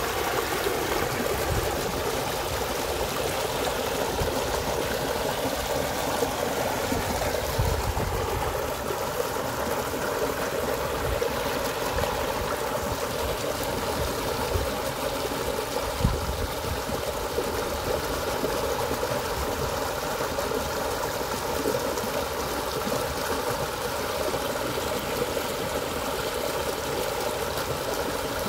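Small muddy stream rushing steadily over a low cascade, a continuous splashing flow with a few brief low bumps.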